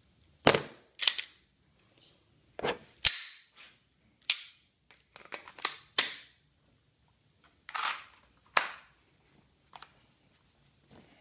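About a dozen sharp, irregular clicks and knocks as an inside-the-waistband pistol holster is handled and settled into the tied drawstring waistband of thin pajama pants.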